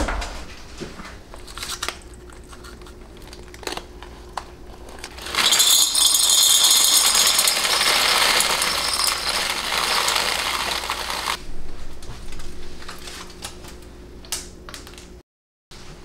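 Dry beans poured out of a foil-lined, partly baked pie crust: a dense, steady rattle of hard beans lasting about six seconds, starting about five seconds in, with scattered clicks of handling before and after.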